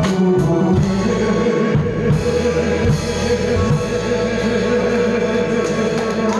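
Closing instrumental bars of a song: a drum kit played live along with the band music, several drum and cymbal strokes in the first couple of seconds, then the accompaniment holding a sustained final chord.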